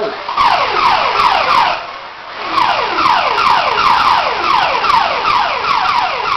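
Electronic siren sound effect of a New Bright Rescue Boom #55 toy fire engine: a rapid run of falling tones, about two and a half a second, with a short break about two seconds in.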